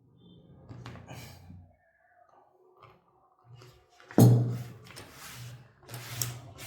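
Handling noises: a sudden thump about four seconds in, followed by repeated rubbing and rustling sounds.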